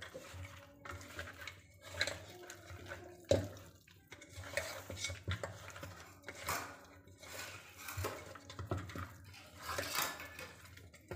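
Fish pieces being mixed by hand with spice powders in a stainless steel bowl: irregular clinks, knocks and scrapes against the bowl.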